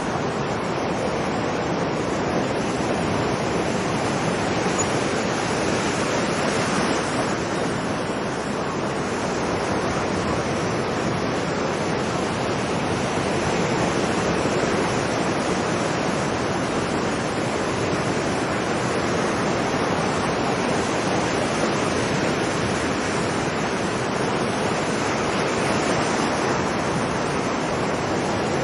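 Ocean surf washing continuously onto a beach, a steady rush of breaking waves that swells slightly a few times.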